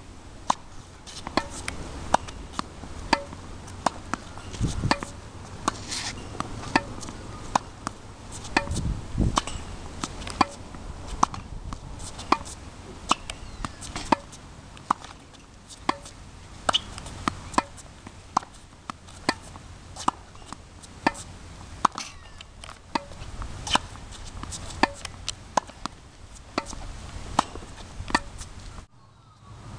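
Tennis ball struck by a racket in a quick volley drill at the net: sharp pops of ball on strings about once a second, with fainter hits between.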